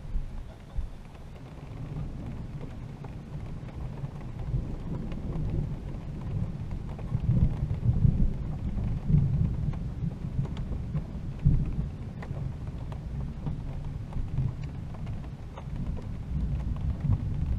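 Thunderstorm: low rolling thunder that swells and fades, loudest around the middle, over falling rain.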